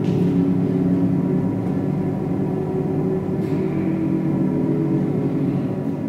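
A steady low drone of several held tones, with a faint hiss swelling briefly near the start and again about halfway through.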